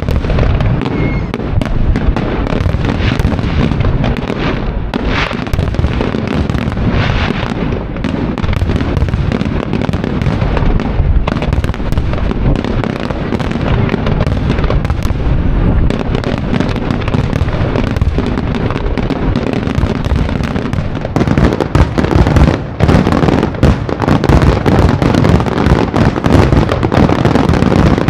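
Fireworks display: a continuous barrage of shell bursts and crackling bangs over a low rumble, growing denser and louder about twenty seconds in.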